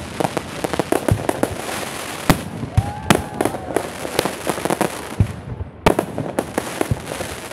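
Fireworks display: aerial shells bursting in quick, uneven succession, with sharp bangs over a dense crackling of stars.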